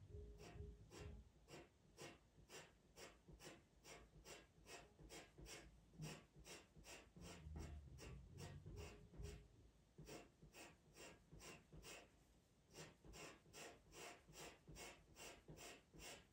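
Pastel pencil scratching across Pastelmat paper in quick, even back-and-forth strokes, about three a second, faint. The strokes pause briefly about three-quarters of the way through, then carry on.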